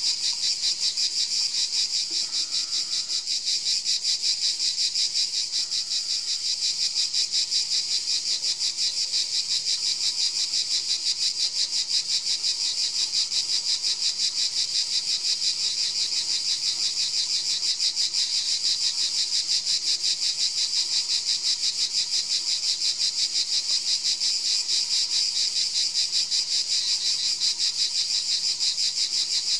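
Steady chorus of singing insects: a high-pitched chirring that pulses evenly a few times a second without a break.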